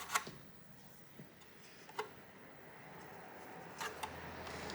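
A few sharp clicks and light taps from handling the hoverboard's plastic wire connectors, one near the start, one about two seconds in and a couple near the end, over a faint rustle that grows toward the end.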